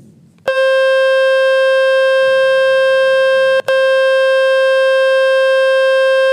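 Speaker-cleaning tone from the Fix My Speaker website, a loud, steady, buzzy beep meant to shake dust and water out of the phone's speaker. It starts about half a second in and breaks off for an instant partway through before resuming.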